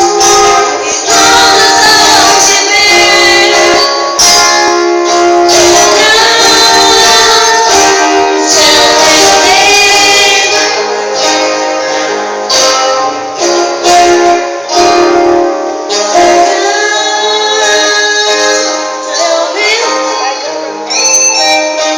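Worship band rehearsing: women singing a song with instruments behind them, recorded loud and close.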